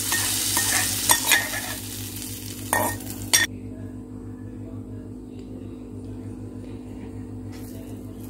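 Hot ghee sizzling as fried cashews and almonds are tipped out of a small kadai into the mashed green gram, with a steel spoon scraping and clicking against the pan. It cuts off suddenly about three and a half seconds in, leaving a faint steady hum.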